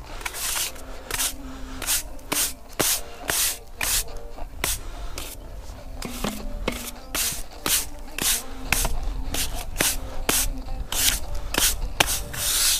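Stiff-bristled push broom sweeping sand across a concrete foundation footing, in quick repeated strokes at about two a second.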